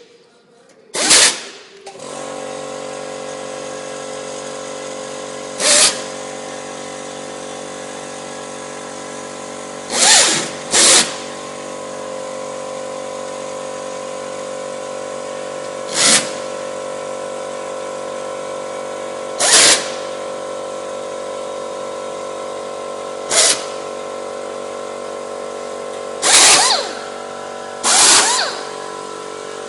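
Power drill driving screws in short trigger bursts, about nine times, each spinning up and stopping within half a second. Under it runs a steady mechanical hum from about two seconds in.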